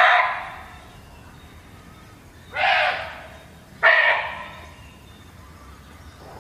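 Indian muntjac (barking deer) giving three short, dog-like barks: one at the start, then two more about two and a half and four seconds in, each trailing off.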